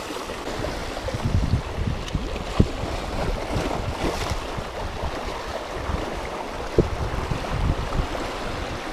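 Small sea waves washing and splashing against shoreline rocks, with wind buffeting the microphone and two short sharp knocks, one between two and three seconds in and one near seven seconds.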